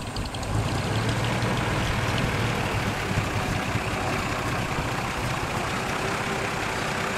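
1920 Locomobile Model 48's big T-head six-cylinder engine idling steadily with a low rumble, getting louder about half a second in.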